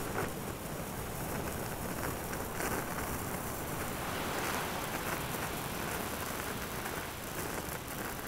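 Steady rushing noise of wind and waves at the seashore.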